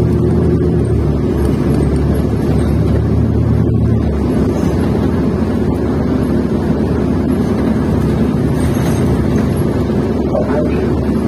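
A 2015 New Flyer XN40 transit bus under way, its Cummins Westport ISL-G natural-gas engine and Allison B400R transmission running with steady road rumble. A low engine drone is strong at first and drops away about four seconds in.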